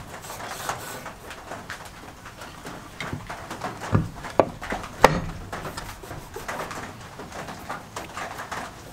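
Rusty cast-iron drill press vise being handled on a wooden surface: light metal clicks and taps, then a few sharp knocks in the middle as it is tipped over and set back down, the loudest about five seconds in.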